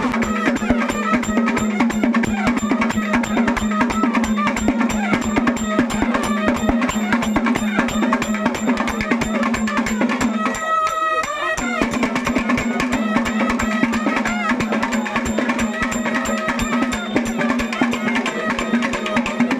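Procession band playing: fast, dense drumming on snare and bass drums under a steady held low note from the band's horns. About halfway the low note drops out briefly and a single clear high note stands out for about a second.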